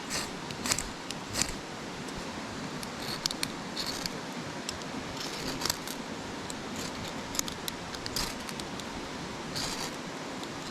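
A striker scraped repeatedly along a fire starter to throw sparks for lighting a fire. It makes short, sharp scrapes at uneven intervals.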